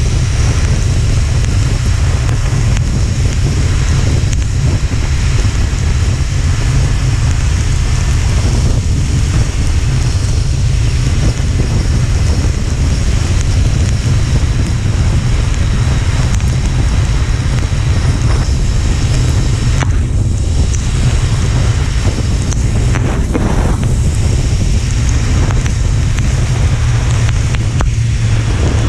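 Wind buffeting the microphone on a moving motorcycle: a loud, steady low rumble with a hiss above it.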